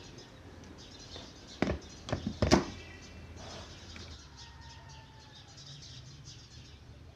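Plastic knocks and clicks as the motor unit of an electric mini chopper is fitted onto the bowl's lid, then the chopper running as a faint steady low hum while it blends Oreo biscuits with milk and egg.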